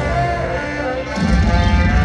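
Live rock band playing, with guitar to the fore, heard from high in the stadium stands. The bass and drums drop out for a moment about a second in, then the full band comes back.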